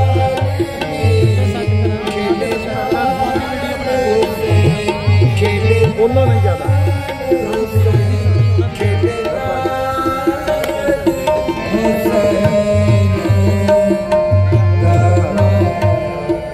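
Punjabi Sufi dhamal music played live: tabla with deep bass strokes in quick clusters, harmonium, and a male voice singing.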